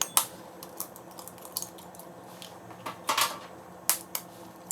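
Eggs being cracked on a bowl: a few sharp taps and clicks of shell against the bowl, the louder ones about three and four seconds in.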